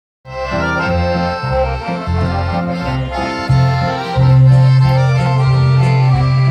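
Accordion music played live, starting abruptly; the bass shifts between notes, then holds one low note steadily from about four seconds in.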